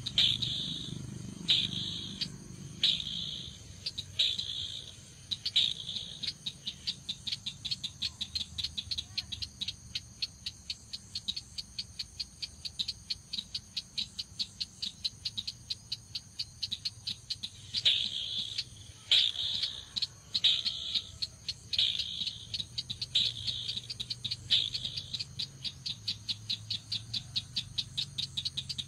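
Chàng nghịch (red-eyed crake) call: sharp high notes about a second apart that speed up into a long fast run of about five notes a second, then slow again and speed up once more.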